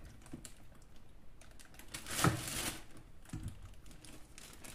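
Thin plastic bag crinkling as raw chicken pieces are put into it: light scattered rustles and clicks, loudest about two seconds in, with a soft bump a little later.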